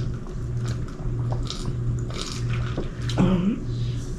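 Eating at a table: chewing and biting with scattered light clicks of plastic forks on plates, over a steady low hum. A short voiced sound about three seconds in.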